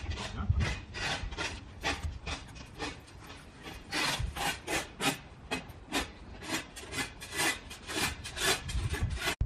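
Rhythmic rasping strokes of hand-tool construction work, about two a second, with a short break around the middle.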